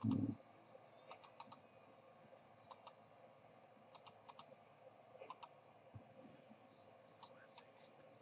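Clicking at a computer: short, light clicks, mostly in quick pairs or triples every second or so. A brief low thump comes right at the start.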